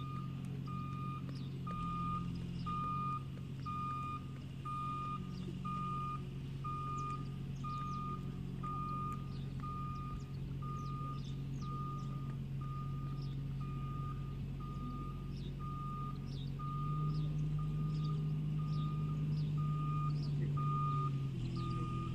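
A vehicle's reversing alarm beeping steadily, a little under two beeps a second, over the low drone of its running engine, which grows louder about two-thirds of the way through.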